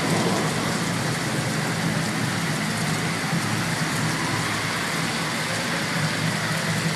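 Heavy rain falling steadily, with the steady low running of a vehicle engine close by.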